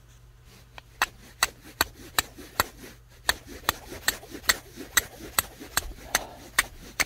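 Carbon-steel striker struck repeatedly against a hand-held flint to throw sparks at char cloth for an ember: a run of sharp scraping clicks, about two or three a second, starting about a second in.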